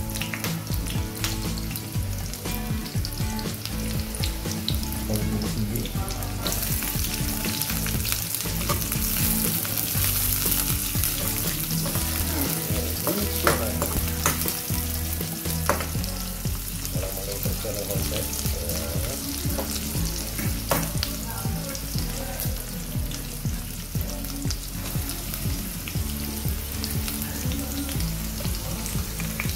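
Chopped garlic and sliced green chillies sizzling in hot oil in a non-stick wok while being stirred with a metal spoon, with a few sharp clinks of the spoon against the pan. The sizzle grows louder about six seconds in.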